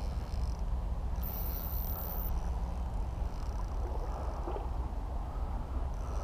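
Steady wash of river current with a low rumble of wind on the microphone. About a second in, a thin high-pitched hiss lasts about a second.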